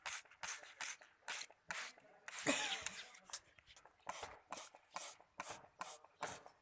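Quick, repeated squirts of water from a hand spray bottle, about two or three a second, misting a ringneck parrot for its bath. About two and a half seconds in there is one louder, longer burst with a short falling cry.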